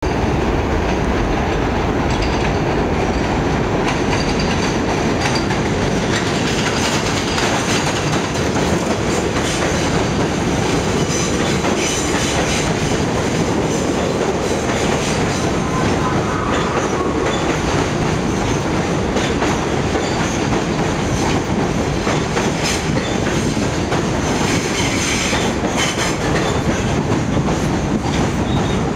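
R46 subway train running on an elevated steel structure, rounding a curve and pulling into the station, its wheels clattering over the rail joints with a steady loud rumble.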